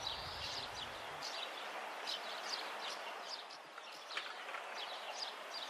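Birds chirping, many short high calls one after another, over a steady hiss of outdoor ambience.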